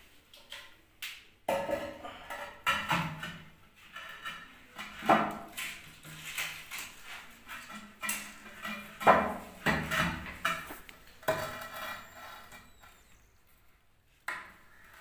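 Hand tools knocking and clinking against a ceramic toilet tank and tile floor while the tank's mounting nut is worked loose: irregular sharp metallic taps, each with a short ring, quieter near the end.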